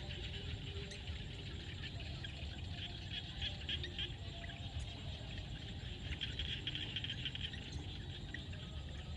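Frogs and insects calling together in a steady chorus. The chorus swells with bursts of rapid trilling about three seconds in and again about six seconds in, over a low steady rumble.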